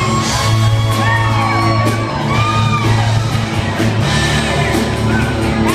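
Loud music with a steady deep bass, drum hits and a voice sliding up and down in pitch.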